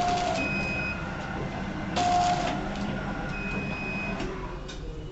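Automatic four-side-seal liquid-soap sachet packing machine running, with a mechanical clack about every two seconds over a steady hum.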